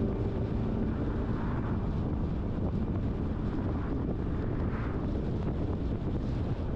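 A car on the move: a steady low rumble of road and engine noise, with wind buffeting the microphone and a few soft swells.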